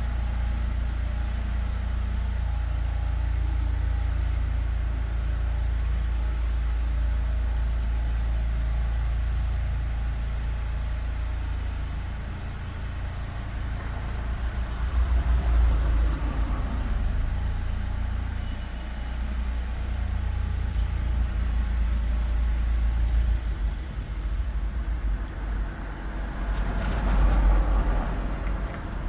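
Street traffic: a steady low engine rumble, with vehicles passing louder about halfway through and again near the end.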